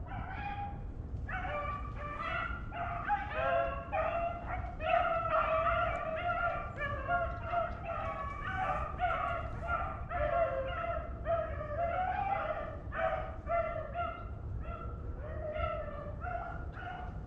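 A pack of beagles baying and bawling together, several voices overlapping in continuous, repeated calls: the hounds giving tongue as they run a rabbit's trail. A steady low rumble sits underneath.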